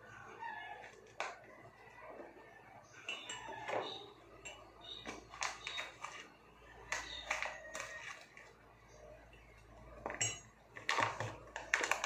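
Spoon and glassware clinking and tapping on a kitchen counter as a powder is measured into a glass by the tablespoon. Scattered light taps, with a quicker run of knocks near the end.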